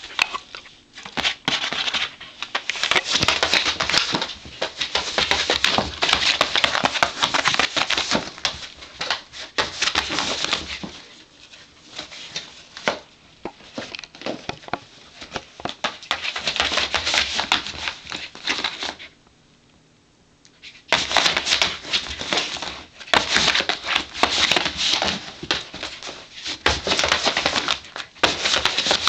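A Corgi shaking and tearing apart an empty cardboard cereal box to get at a treat inside: a dense run of crackling, crunching and ripping cardboard. It breaks off for about two seconds about two-thirds of the way through, then starts again.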